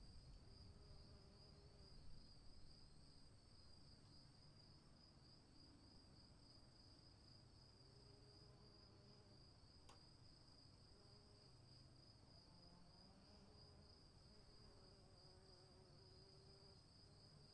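Faint, steady chirping of crickets, a high pulsing trill, over a faint low rumble.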